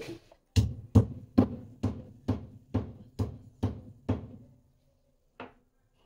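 Stone pestle pounding dry ginger in a stone mortar: nine sharp strikes about two a second, then a single lighter strike after a short pause.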